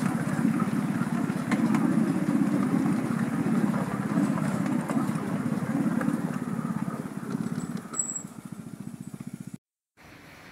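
Narrow-gauge train on the move, heard from a carriage: a steady rumble and rattle of wheels on rails with a few sharp clicks. It fades after about eight seconds and cuts off near the end, leaving faint wind on the microphone.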